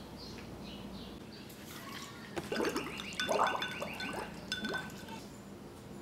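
Gurgling and bubbling through a drinking straw in a glass of ice water. It starts about one and a half seconds in, goes on as a run of short rising gurgles, and stops about a second before the end.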